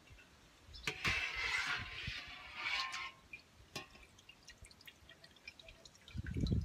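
Whey splashing as a metal mesh strainer is dipped into a pot and lifted out full of cheese curds, then whey dripping and trickling from the mesh back into the pot. Low thuds near the end.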